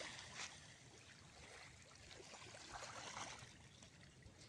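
Faint lapping of small waves washing over a sandy shore, near silence, with a small tick about half a second in.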